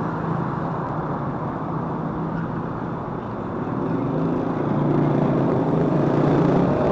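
City street traffic: motor vehicles running by with a steady low engine hum, getting louder in the second half as traffic passes close.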